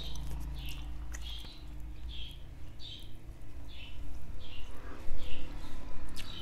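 A bird chirping over and over, short calls about twice a second, over a steady low hum. Clicks and eating sounds from people eating with their hands are mixed in, loudest about five seconds in.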